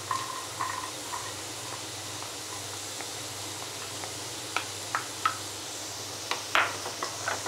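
Green beans sizzling softly in a nonstick wok while diced carrots are scraped in from a bowl with a wooden spatula, with a few light taps and clicks of spatula and bowl in the second half.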